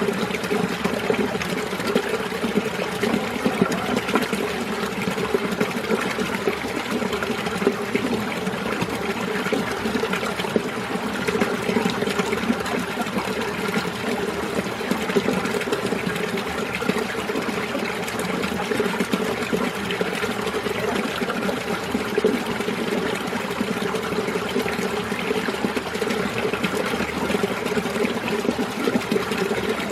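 Mountain stream running steadily over rocks, a continuous babbling and gurgling of water with no pauses.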